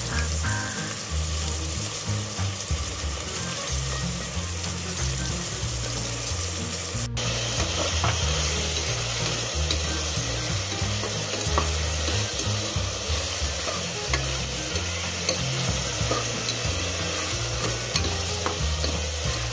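Chopped onions, bay leaves and curry leaves sizzling in hot oil in a pot while being stirred with a slotted spatula. The sizzle gets louder about seven seconds in.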